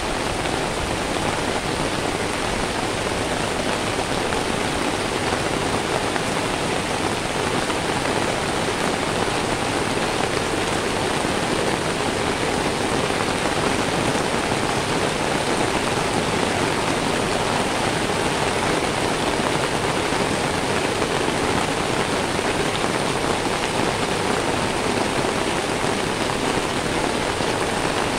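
Steady rain falling on wet paved ground: an even, unbroken hiss.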